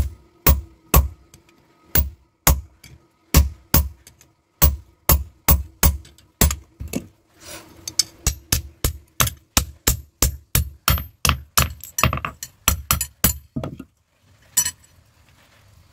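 A blacksmith's hand hammer striking red-hot steel knife stock on an anvil, driving a hot chisel to cut the blank at the start: sharp separate blows, about two a second, quickening to about three a second midway, then a short pause and a few more blows near the end.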